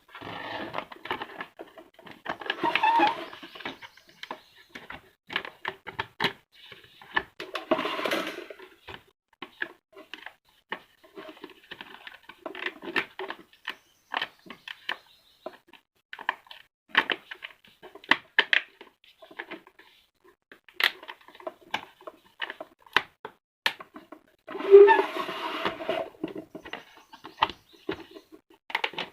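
Irregular clicks, taps and knocks of table-fan parts being handled and fitted together, with a few short stretches of rustling. No fan motor is running.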